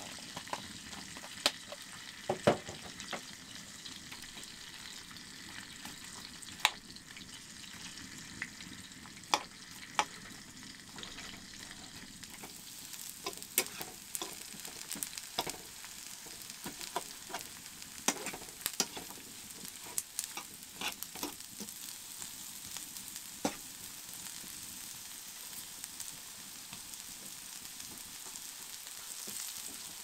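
Hash browns, onions and sliced sausage sizzling in a non-stick frying pan on a wood stove: a steady sizzle, with sharp clicks and scrapes now and then from a fork stirring against the pan.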